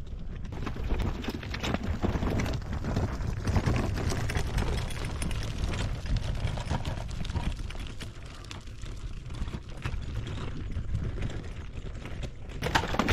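A loaded pull wagon rolling over a dirt trail: a steady rumble from the wheels with irregular rattles and knocks, mixed with footsteps.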